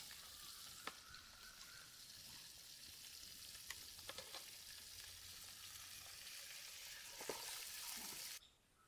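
African catfish shallow-frying in hot oil in a steel kadai, sizzling steadily, with a few sharp clicks. The sizzle cuts off abruptly near the end.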